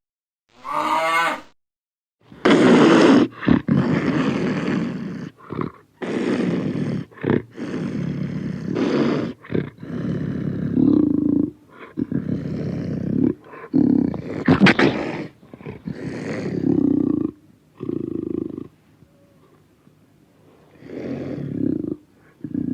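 A string of separate animal roars and growls, one after another with brief breaks, after a short burst and a silent gap at the start, and a pause before the last couple of roars.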